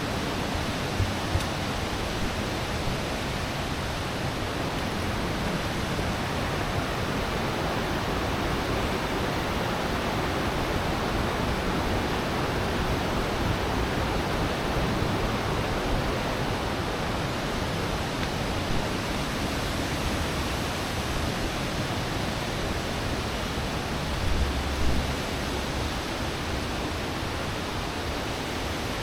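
Steady, even rushing noise that does not change, with a few faint low bumps about a second in and again near the end.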